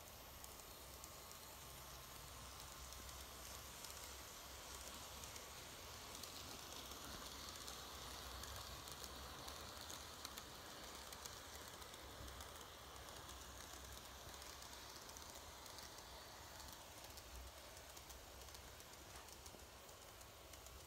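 Faint running sound of an N-gauge model train: a small C11 steam locomotive model's motor and wheels rolling on the track with a light hiss and fine clicking. It grows a little louder around the middle as the train passes close.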